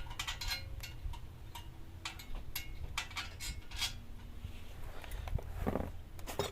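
Scattered light metallic clicks and clinks of a bolt and heat-shield parts being handled and fitted, over a steady low hum, with a brief louder sound near the end.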